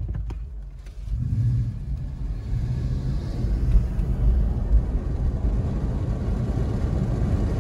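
Inside the cabin of a 2018 BMW i3 accelerating hard from a standstill: a low rumble of tyre and road noise starts about a second in and builds as the car gathers speed.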